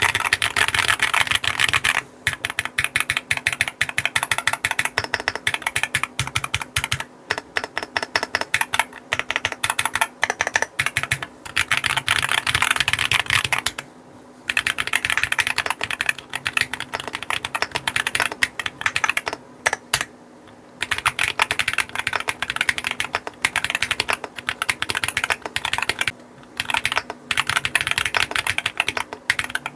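Typing on a Qwertykeys QK60 R2 mechanical keyboard with TTC HolyPanda tactile, non-clicky switches: a rapid, continuous run of keystrokes broken by a few short pauses.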